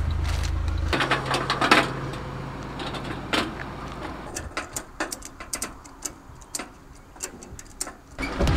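Ratchet tie-down strap being cranked tight over a car's wheel on a flatbed tow truck, a run of sharp separate clicks, after the strap slipped off the wheel. A low hum runs under the first second and then stops.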